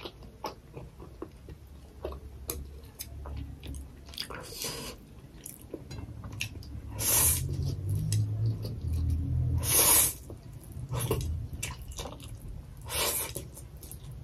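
Fried noodles being slurped, with three loud, short slurps a few seconds apart (about halfway through, around ten seconds in, and near the end). Between them there are quieter wet chewing and mouth sounds.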